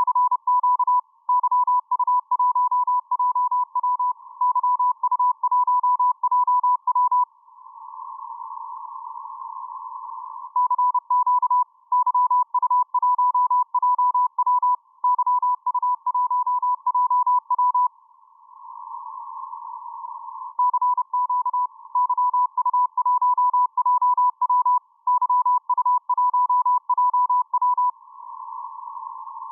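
Morse code (CW) signal received on the 10-metre amateur band, heard from the receiver as a mid-pitched tone keyed on and off in dots and dashes. It comes in three runs of about seven seconds each, with a couple of seconds of band hiss between them.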